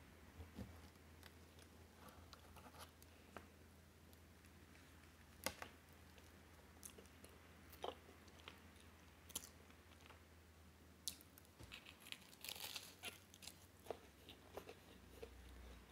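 Close-up chewing and crunching of a flaky Nutella puff-pastry twist, with scattered crisp crackles of the layers and a denser run of crunching about three quarters of the way through.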